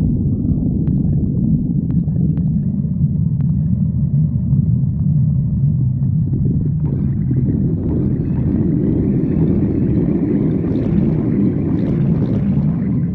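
Hungry stomach growling: a continuous low rumble that fills out with higher gurgling from about halfway through.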